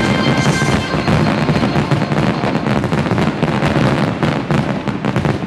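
Aerial fireworks: a dense barrage of overlapping bangs and crackles that thins into separate pops near the end.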